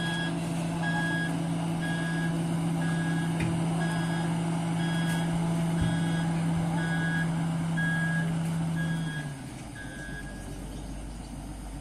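Wheel loader reversing: its backup alarm beeps about one and a half times a second over the steady drone of its diesel engine. About nine seconds in, the engine note drops away and the beeping stops soon after, leaving a low rumble.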